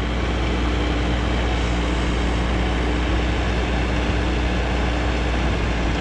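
Engine of heavy farm machinery running steadily, a low rumble with a constant hum.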